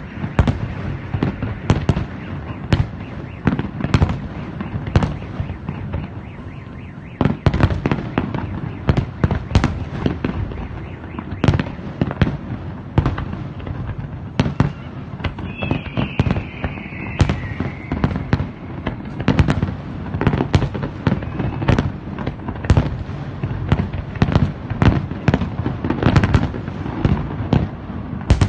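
Fireworks salute: shells bursting in a steady run of sharp bangs, about two or three a second, with their booms overlapping.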